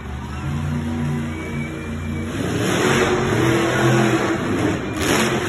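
Monster truck's supercharged V8 engine revving hard, its pitch rising and falling. From about halfway a broad rushing noise swells under it, and a short sharp burst comes near the end.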